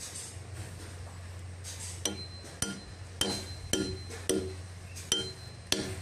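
The back of a hatchet striking a steel chisel set in a hardwood timber: about seven sharp, ringing metal-on-metal taps, starting about two seconds in, over a steady low hum.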